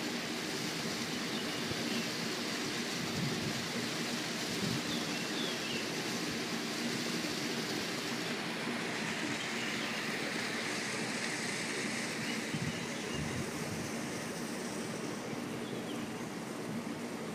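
Steady rush of a small waterfall pouring into a rock-walled pool, with a few brief, faint bird chirps over it.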